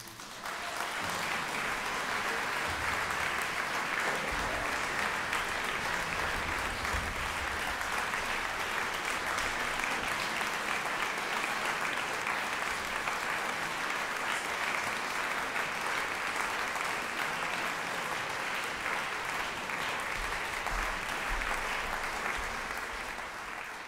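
Audience applauding: dense, steady clapping that starts about half a second in and tapers off near the end.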